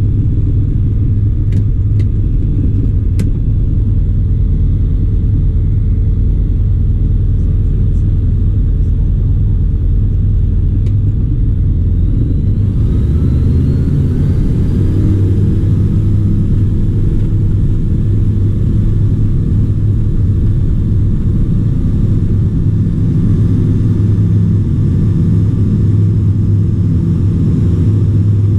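Dynamic WT9 light aircraft's engine and propeller heard from inside the cockpit: a steady low drone at first. About halfway through, power comes up for the takeoff run, the pitch rising, and then holds steady at takeoff power.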